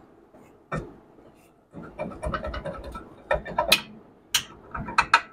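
A new brake rotor being worked onto the wheel hub and its studs: metal clicks and scrapes, a quick run of them about two seconds in, then a few sharp metallic clanks toward the end as it goes on over the studs.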